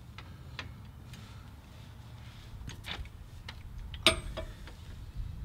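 Scattered metallic clicks of a breaker bar and 15 mm socket working the front differential cover bolts, loosened by hand because they are on tight, with one sharp ringing metal clink about four seconds in.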